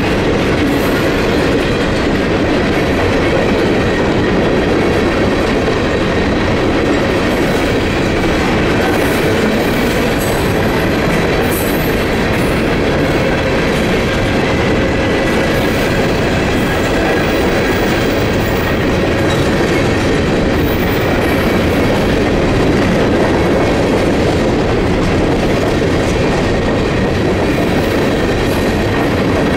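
Reading & Northern coal hopper cars rolling steadily past, their wheels rumbling and clattering on the rails.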